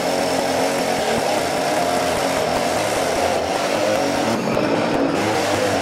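Gas chainsaw running steadily while cutting into a large tree stump, slicing a cross-section slab.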